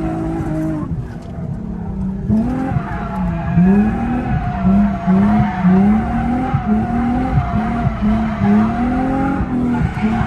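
Car engine held at a steady note, then from about two seconds in revving up and down over and over, roughly once a second, under a continuous tyre squeal: a car drifting.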